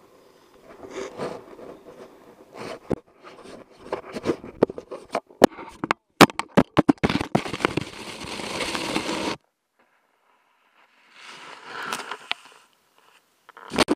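Snowboard scraping and sliding over snow, mixed with jacket fabric rubbing and knocking against a body-worn action camera. It begins as a run of sharp clicks and scrapes, then becomes a steady hiss of sliding snow. The sound cuts out completely for about a second and a half, returns as scraping, and ends with a sharp knock.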